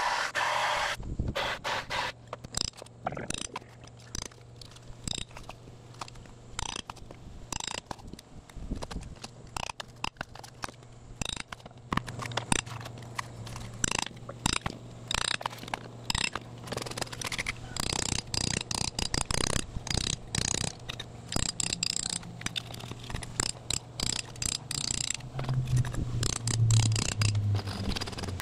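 Hammer striking a chisel again and again in an irregular rhythm, with scraping and cracking as chunks of foam insulation are chipped and pried off the concrete wall.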